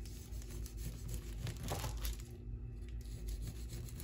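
Chef's knife cutting through a firm date-and-nut roll coated in sesame seeds, the blade pressing through nuts and seeds onto the baking paper beneath in a few short strokes.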